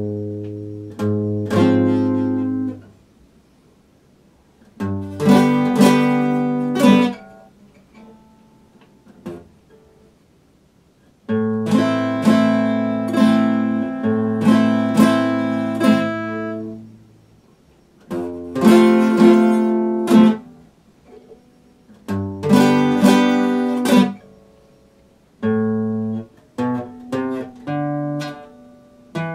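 Acoustic guitar fingerpicked in short phrases of plucked notes and chords, each ringing out, with pauses between phrases and the longest pause, a few seconds, in the first half.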